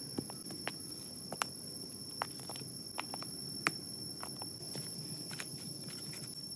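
Campfire burning, the wood crackling with irregular sharp pops over a low rushing hiss, with a steady high-pitched whine behind it.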